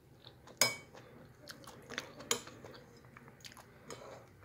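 Close-up chewing of a soft beef and vegetable stew, with small wet mouth clicks and a couple of sharper clicks about half a second and two seconds in.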